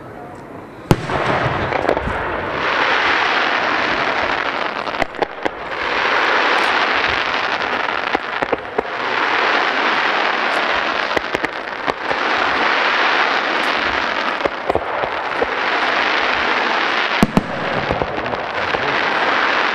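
Aerial fireworks going off: a sharp bang about a second in, then waves of hissing every few seconds as trails rise, with many short pops and crackles.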